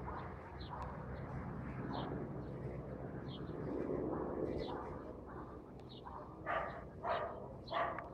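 A dog barking repeatedly, with three louder barks near the end, over a steady low hum.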